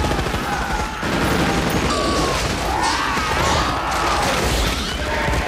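Film battle soundtrack: continuous automatic fire from Morita assault rifles, mixed with high arching cries and crashes, under a music score.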